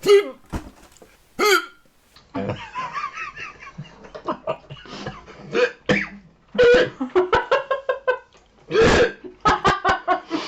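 A person hiccupping repeatedly after eating hot chili, sharp single hiccups early on, then runs of quick short vocal bursts with laughter mixed in.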